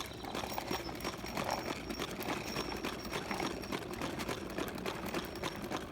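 Lawnmower running steadily, a rapid even clatter over a low hum.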